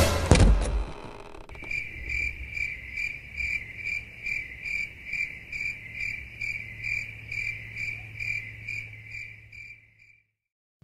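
Cricket chirping sound effect, a steady high chirp about twice a second, the cartoon gag for a stunned, awkward silence. It begins about a second and a half in, right after the fading tail of a loud burst of thuds and crashes, and stops about a second before the end.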